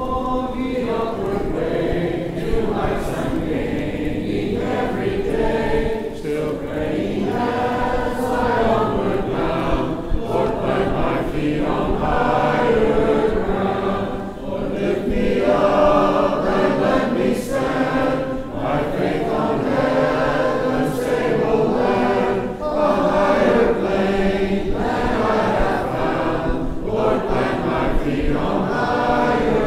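A congregation of men and women singing a hymn together a cappella, with brief dips between sung lines.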